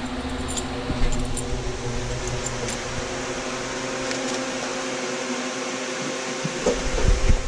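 A steady machine hum, like a fan or air-conditioning unit, with a few light clicks and knocks of small items being picked up and handled.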